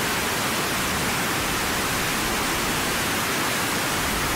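Rushing water: a loud, steady, even hiss.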